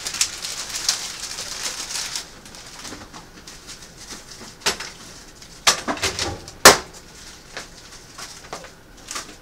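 Plastic grocery bags rustling, then a scatter of knocks and clunks as canned goods and boxes are set onto a wooden kitchen cabinet shelf, the sharpest about two-thirds of the way in.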